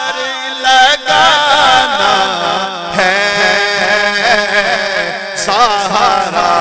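A man's solo voice singing an Urdu naat into a microphone, drawn out in long, wavering, ornamented phrases.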